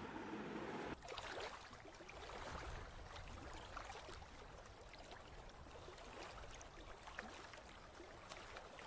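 Faint steady background noise, close to silence, with a slight drop in level about a second in.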